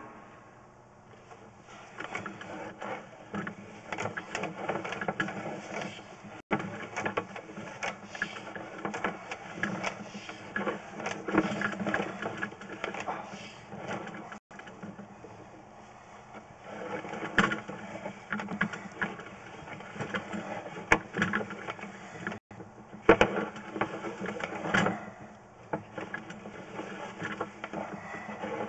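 Sewer inspection camera being pushed along a drain line: a continuous clattering and scraping from the push cable and camera head, broken by a few short pauses.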